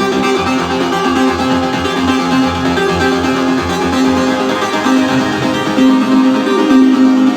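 Instrumental band music: plucked guitar notes over a pulsing bass line, with no singing.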